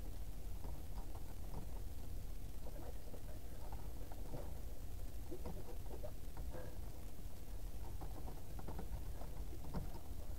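Computer keyboard typing: irregular key clicks a few per second, over a steady low hum.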